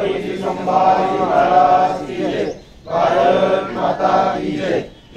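Voices chanting a Marathi devotional verse together in a steady, sing-song recitation: two long phrases with a short breath between them.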